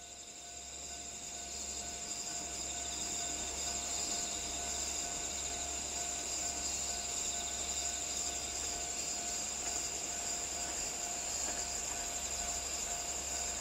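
Crickets and other night insects trilling steadily in several high-pitched layers, over a faint low hum.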